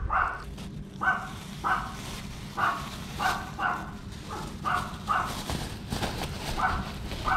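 A dog barking repeatedly in short barks, about two a second, over a low steady hum.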